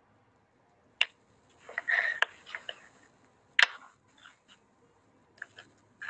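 Two sharp clicks about two and a half seconds apart, with a brief muffled rustle between them and a few faint ticks after.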